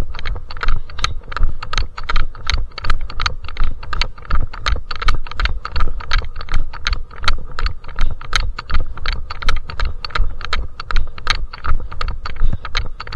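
A runner's footsteps at a steady pace, about three footfalls a second, over a steady low rumble.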